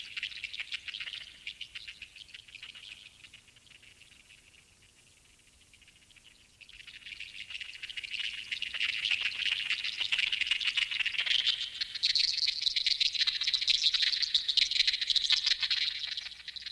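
Insects chirring, cricket-like: a dense, rapid trill that dies down a few seconds in, then swells back up louder.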